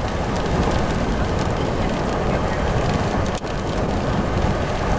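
Steady rushing road and wind noise inside a moving car, heaviest in the low end, with a brief break about three and a half seconds in.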